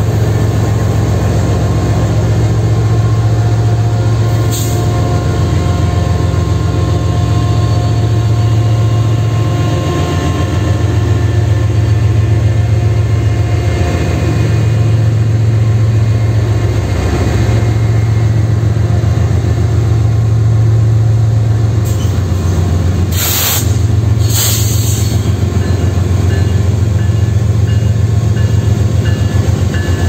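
Kansas City Southern GE ES44AC diesel-electric locomotives passing close by, their engines running with a steady deep rumble. Two brief sharp sounds come about 23 and 24 seconds in.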